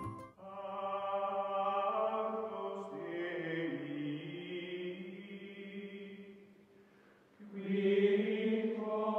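Outro music of sustained, chant-like voices: long held chords that shift slowly in pitch and fade away, then a final louder chord that stops abruptly.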